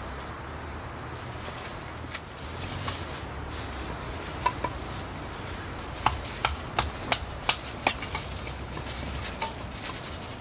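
A knife driven into an upright stick of firewood to split off kindling: a run of sharp wooden knocks and cracks, one about four seconds in and then six in quick succession between six and eight seconds in.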